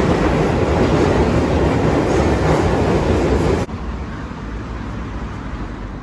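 Train running: a loud, steady rumbling and rushing noise, which drops suddenly to a quieter rushing about three and a half seconds in.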